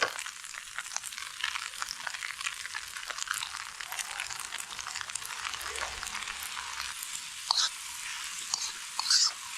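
A stir fry of noodles, steak and vegetables sizzling steadily in a hot pan on a camp stove, with a utensil clicking and scraping against the pan as it is stirred, louder scrapes near the end.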